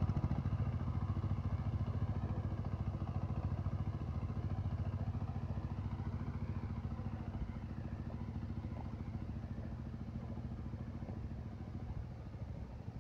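Two-wheel power tiller's single-cylinder diesel engine chugging steadily under load, slowly fading as the machine moves away. Its cage wheels churn through flooded paddy mud and water.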